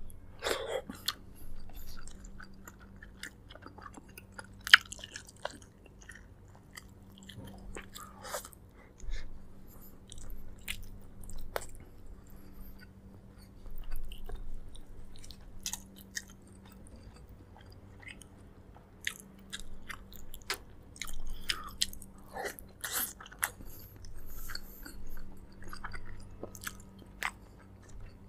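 A person chewing and biting into braised pork leg: wet chewing and mouth smacks in irregular bursts, with one sharp click about five seconds in, over a faint steady low hum.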